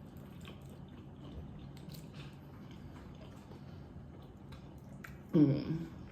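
Close-up wet eating sounds: faint squishing, smacking and chewing of saucy seafood-boil food. A short burst of voice comes near the end.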